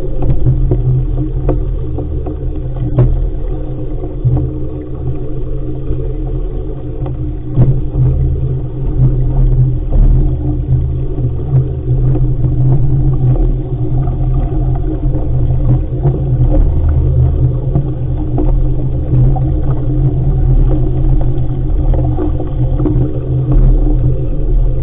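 Wind rumbling on the microphone over water rushing past a sailing dinghy's hull under way: a loud, steady low rumble with scattered short knocks and splashes.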